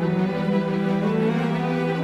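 Background music with long, held notes.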